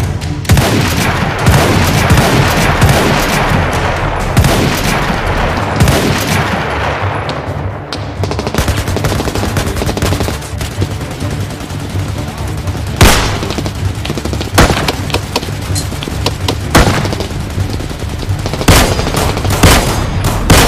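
Gunfire in a shootout: a dense stretch of rapid, overlapping shots over the first several seconds, then separate single shots a second or two apart through the second half, the loudest about two-thirds of the way in.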